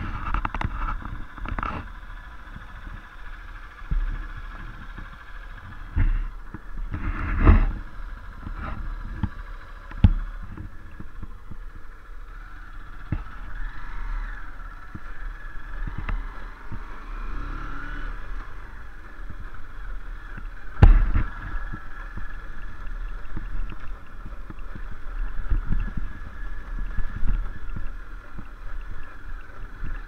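Honda CBF150 motorcycle's single-cylinder engine running as it is ridden along a rough dirt track, its pitch rising and falling with the throttle, under a steady low wind rumble on the helmet camera. Several loud thumps from the bumps come through, the loudest about a third of the way in and again about two thirds in.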